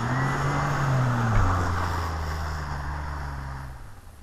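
Ford F-150 pickup's EcoBoost V6 revving as it drives off through snow: the engine pitch rises and falls once in the first second and a half, then holds and fades as the truck pulls away. A hiss of tyres in the snow runs with it.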